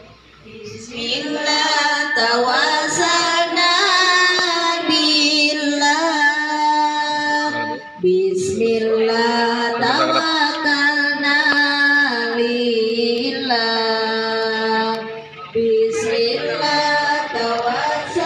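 A woman's voice singing a slow melody in long, held phrases, with brief pauses between phrases.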